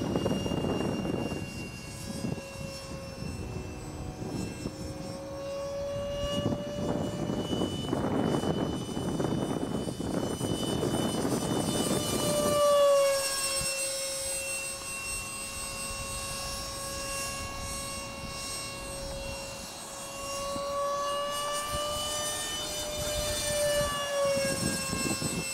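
Radio-controlled model jet in flight: its engine gives a steady high whine that wavers and bends in pitch as the model moves about the sky. A rushing noise swells near the start and again for several seconds before the middle.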